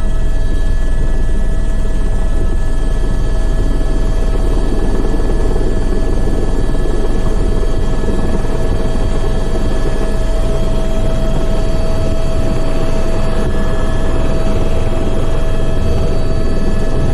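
Airbus helicopter's turbine engine and rotors heard from inside the cabin: a steady loud drone with a constant whine over it, as it makes its landing approach.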